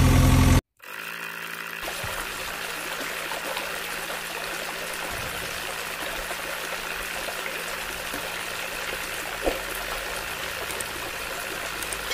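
A small motor runs loudly for half a second and cuts off abruptly. Then water pours steadily from a plastic tube, trickling and splashing into a shallow muddy puddle.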